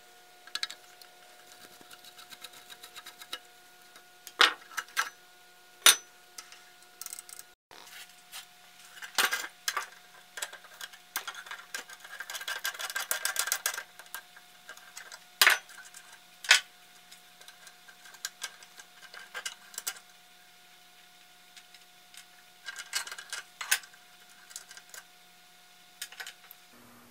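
Hand wrenches clinking and knocking against the steel blade, nut and housing of an electric lawn edger as the blade nut is worked loose. Single sharp metallic clicks come every few seconds, with a quicker run of clicks about halfway through.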